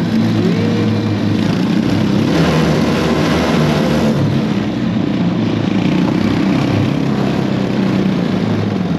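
Small engine of a ride-on mini Jeep running steadily as it drives along.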